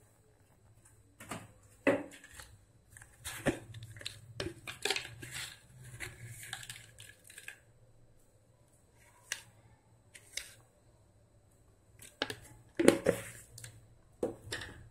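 A spoon and a wooden spatula clinking and scraping against a steel kadai and a salt container while salt is spooned into the dal. Scattered sharp knocks, a busy stretch of rattling and scraping a few seconds in, and a louder cluster of clatter near the end, over a faint low hum.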